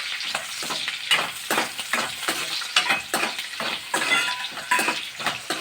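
Sliced onions sizzling in hot oil and ghee in a kadai while a spoon stirs them, with frequent short scrapes and knocks against the pan.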